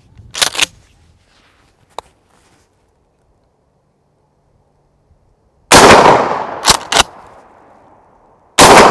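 Two 12-gauge pump-action shotgun blasts firing rifled slugs, about three seconds apart, each with a long fading echo. Between them the pump is racked back and forward in two quick sharp clacks, and a few light clicks of handling come before the first shot.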